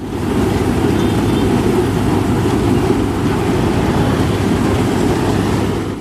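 Tractor-mounted combine harvester running steadily while threshing paddy rice: a constant, loud mechanical noise of engine and threshing machinery, heaviest in the low range.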